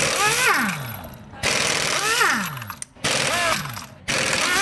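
Cordless impact wrench hammering the lug nuts loose on a car wheel, in about four bursts of a second or so each with brief pauses between. Each burst carries a rapid hammering rattle and a motor whine that falls steeply in pitch.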